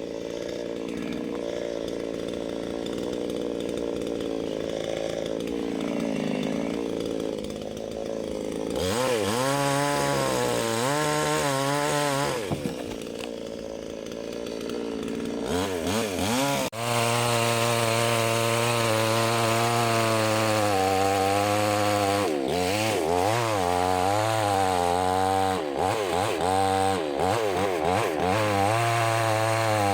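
Two-stroke chainsaw running steadily at first, then revving up and down. Its pitch rises and dips repeatedly as it works through wood, with a short steadier lull in the middle.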